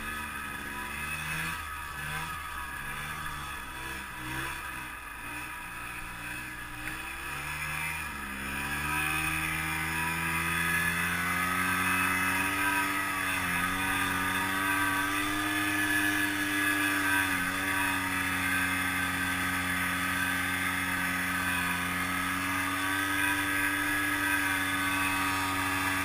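Snowmobile engine of a modified 2006 Ski-Doo Tundra pushing through deep powder. For the first eight seconds or so the engine note wavers on and off the throttle. It then rises to steadier, higher revs and gets louder, with a couple of brief dips as it climbs.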